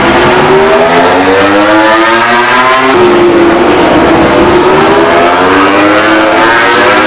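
Racing motorcycle engine at high revs, accelerating with a rising pitch, a gear change about three seconds in, then climbing again.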